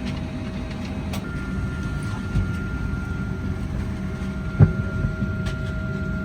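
Steady low hum of a parked Boeing 737-800's cabin air during boarding, with a thin steady whine that joins about a second in. A single thump about four and a half seconds in.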